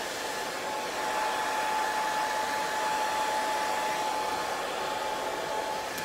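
Handheld hair dryer blowing steadily, a rushing air hiss with a thin steady motor whine running through it, a little louder from about a second in.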